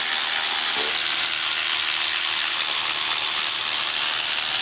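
Power ratchet running steadily with a loud, even hiss while it spins out the intake manifold bolts on a Subaru EJ20 engine.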